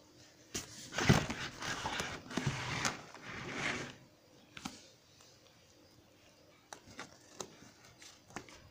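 Rustling and scraping against a black leather sofa, loudest for a few seconds about a second in, then only faint scattered clicks.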